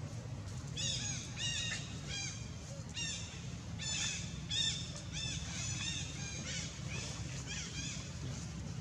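A run of high, squeaky animal calls, each rising and falling in pitch, two or three a second, over a steady low rumble.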